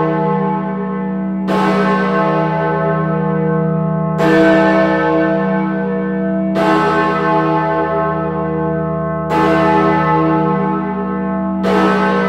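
Great George, a large swinging tower bell, tolling: five strikes about two and a half seconds apart, each ringing on over a deep hum that carries through between strikes. It is rung as a mourning toll for the Queen.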